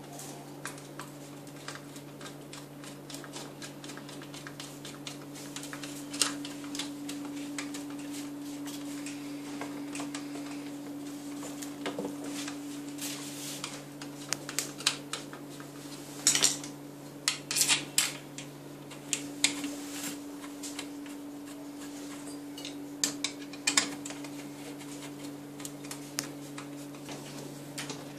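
Baby cradle frame parts, plastic joints and metal tubes, clicking and knocking as they are handled and fitted together, in scattered clusters over a steady low hum.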